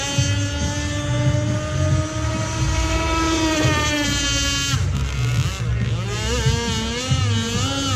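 Radio-controlled racing speedboat's motor whining at speed: a steady high whine that cuts off abruptly just past halfway, then a second whine that wavers up and down in pitch.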